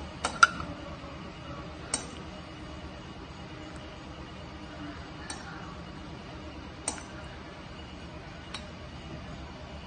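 Steel ladle clinking against a steel pot and a bowl as soup is ladled out: about half a dozen sharp clinks spread out, the loudest about half a second in.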